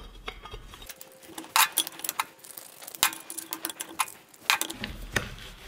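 Metal clicks and clacks from a magnetic chuck's switching mechanism worked by hand: the lever turns the cam and the magnet carriage shifts between the on and off positions, with several sharp knocks at uneven intervals. The mechanism, once seized by corrosion, now moves freely after repair.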